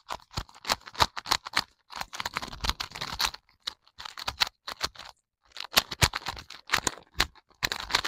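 Magnetic GAN 2x2 speed cube being turned quickly by hand: rapid clicking of its layers, in runs broken by short pauses.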